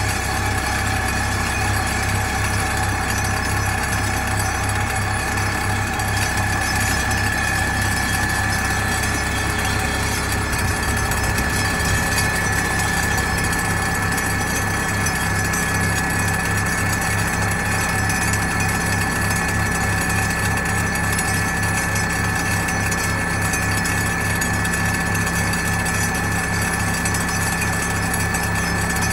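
ThyssenKrupp MS-10 vibratory pile hammer running steadily, shaking a steel pipe pile into the ground. It makes a steady pulsing drone with a constant high whine over it, and a deeper hum joins about halfway through.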